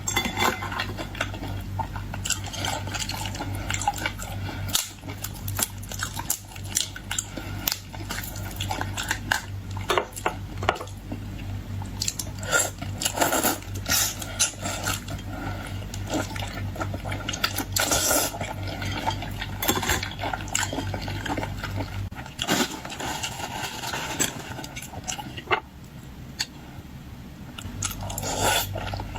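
Eating boiled shrimp at the table: irregular clicks and crackles of shells being handled, clinks of dishes and cutlery, and wet liquid sounds. Under them runs a low steady hum that stops for a few seconds near the end.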